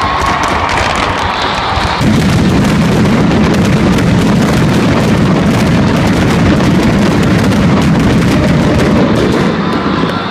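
Stadium fireworks barrage: a dense, continuous mass of shots and bangs that steps up suddenly about two seconds in and eases off near the end.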